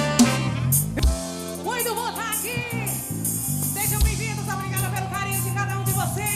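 Forró band playing live: a slow passage with a wavering, vibrato-laden melody line over long held bass notes, punctuated by a heavy drum hit about a second in and another about three seconds later.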